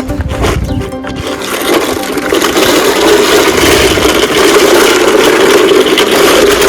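A toy construction vehicle scraping and grinding through sand: a continuous, loud scraping noise that grows louder about two seconds in.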